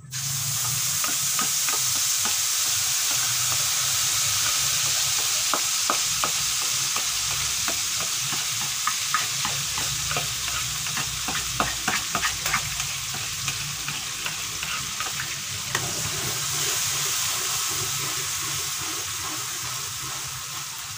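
Ground spice paste of garlic, shallot, ginger and candlenut sizzling steadily in hot oil in a pan, with frequent light clicks and scrapes of a utensil stirring it.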